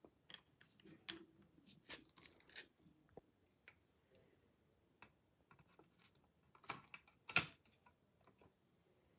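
Faint, scattered clicks and taps of plastic model railway cars being handled and set on the track, with a louder click about seven seconds in.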